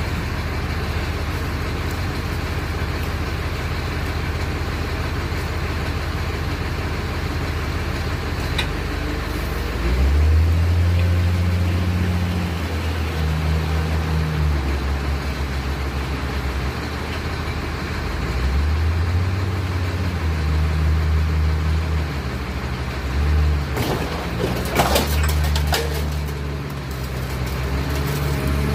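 John Deere wheel loader's diesel engine running and revving up under load several times. Near the end there is a cluster of sharp metal cracks and creaks as the Chevy Tahoe's body is torn off its frame.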